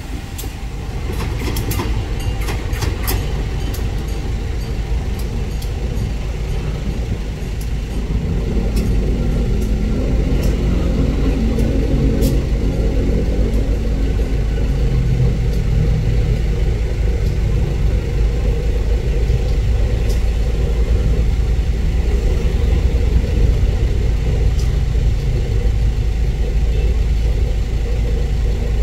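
KAI CC 201 diesel-electric locomotive approaching slowly, its engine running with a low, steady hum that grows louder as it draws near. A few sharp clicks of wheels on rail come in the first few seconds.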